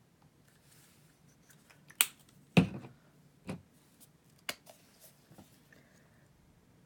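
A few sharp plastic clicks and a knock as paint bottles are handled: flip-top caps snapping and a bottle set down on the table. The loudest, a duller knock, comes about two and a half seconds in.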